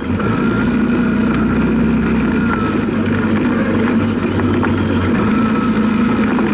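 Side-by-side UTV's engine running steadily under way, heard from inside the open cab, with a higher whine over it. A few short knocks come from the buggy riding over bumps.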